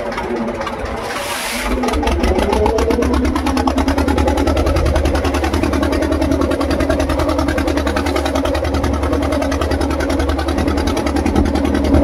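Small motorized fishing boat's engine picking up speed about two seconds in, its pitch rising, then running steadily and louder.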